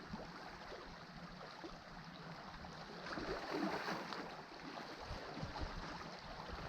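Sea water washing against shoreline rocks, a steady wash that swells a little about three seconds in.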